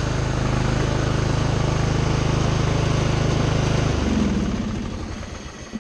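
Craftsman lawn tractor engine running steadily, then shut off about four seconds in and winding down to a stop.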